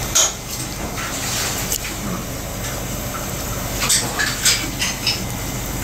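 Sushi-counter room ambience: a steady low hum with a few sharp, light clinks of tableware, one just after the start and a quick run of about five about four to five seconds in.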